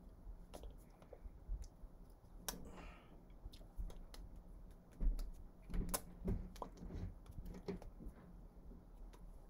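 Scattered soft taps, slaps and rustles from hands striking each other and brushing the shirt while signing in sign language, over a faint low hum; the loudest knocks come about five to six seconds in.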